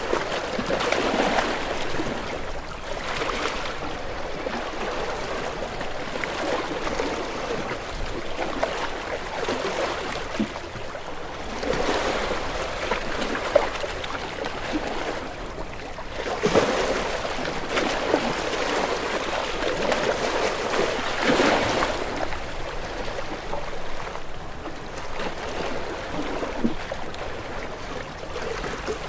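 Sea waves washing in, a steady hiss of water with several louder surges at irregular intervals.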